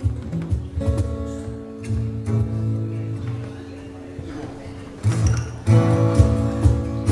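Two acoustic guitars strumming chords that ring on in a song's opening bars, softer in the middle and then louder and fuller from about five seconds in.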